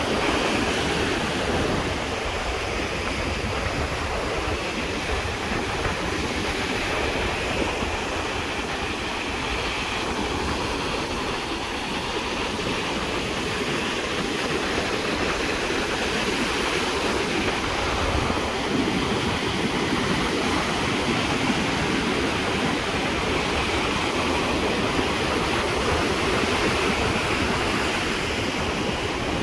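Ocean surf breaking and washing up a beach: a steady rush of water.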